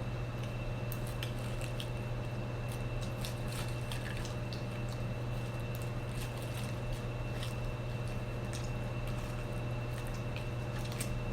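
Close-up chewing of cheesy nachos: scattered short wet clicks and crunches. Under it runs the steady hum of an electric fan.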